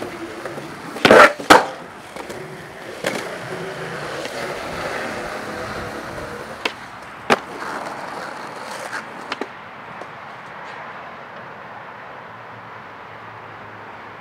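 Skateboard rolling on pavement with hard clacks of the board: two loud ones about a second in, then several smaller knocks. The rolling stops after about nine seconds, leaving quieter background noise.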